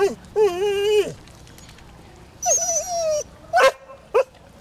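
Springer spaniel whining: two drawn-out high whines, then two short yelps near the end, typical of a dog frustrated at something it can't get to.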